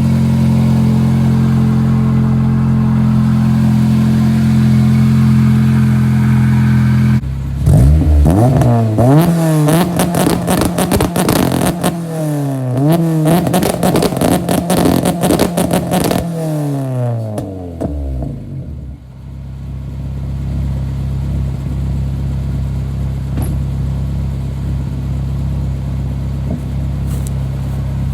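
Honda RSX four-cylinder engine running at a steady pitch, then about seven seconds in accelerating hard through several gears, the pitch climbing and dropping back at each shift. Near the middle it winds down in a falling pitch and settles into a steady lower drone.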